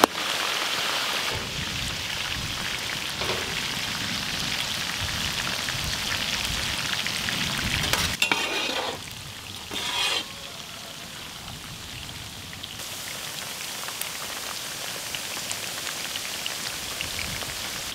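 Marinated tuna chunks deep-frying in a wide pan of hot sesame oil, a steady bubbling sizzle. The sizzle turns a little quieter from about nine seconds in.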